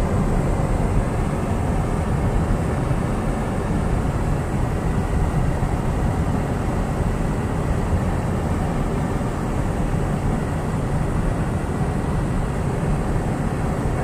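Steady road noise inside a moving car: engine and tyres rolling over a snow-covered road, low and even throughout.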